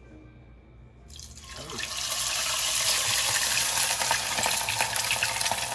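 Shrimp going into hot deep-frying oil about a second in: the oil starts to sizzle with a crackle, building up quickly over the next second and then frying steadily.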